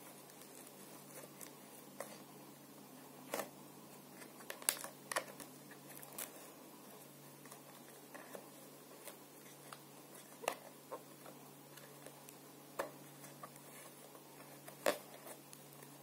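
Scattered light plastic clicks and taps from a PVC pipe cap and a sponge filter being handled and pressed together by hand, one every second or two, over a faint steady low hum.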